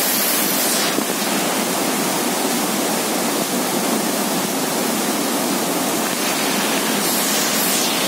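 Waterfall crashing onto rocks and churning water: a loud, steady rush of falling water.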